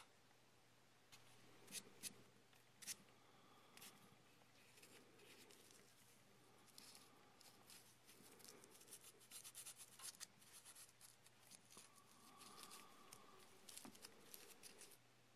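Hardened stone-powder clay being filed by hand with a small file: dry, quick, irregular scraping strokes, starting with a few separate sharp scrapes and then coming in fast runs.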